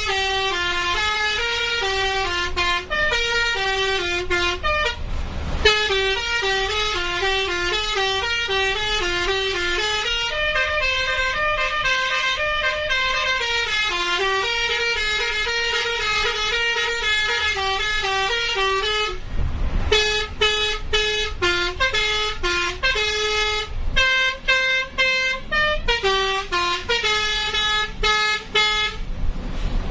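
A telolet (basuri) multi-tone bus horn playing a quick tune, stepping from note to note every fraction of a second. The notes break off twice, briefly, about five and nineteen seconds in, and are choppier near the end.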